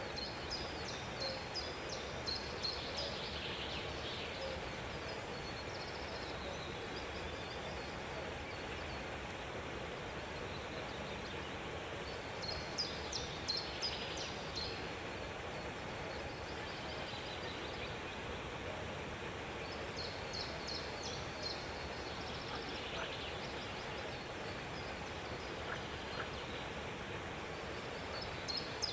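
A bird giving bouts of rapid, high chattering notes, several times, each bout a second or two long, over a steady background hiss.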